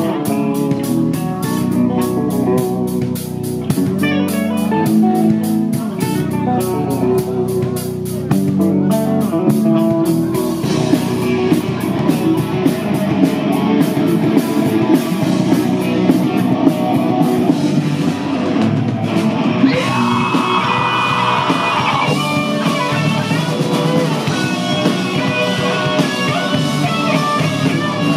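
Live rock band playing loud: electric guitar, bass guitar and drum kit, the music changing character about ten seconds in.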